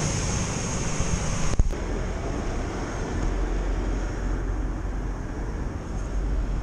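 Steady outdoor street noise, a hiss and low rumble of wind on the microphone and traffic, with a single sharp click about one and a half seconds in, after which the background changes abruptly.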